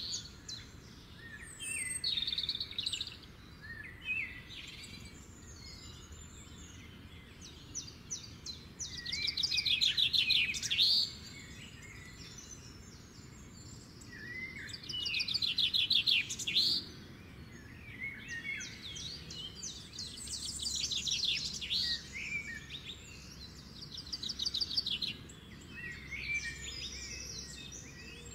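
Songbirds singing: a fast trilled phrase of about two seconds repeats every few seconds, loudest about ten and sixteen seconds in, with shorter chirps between. A low steady background rumble runs beneath.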